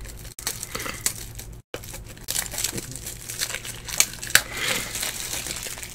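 Crinkling and rustling of plastic and card with small clicks, from trading cards being handled and sorted in plastic wrappers and sleeves. The audio cuts out briefly twice, once just after the start and again under two seconds in.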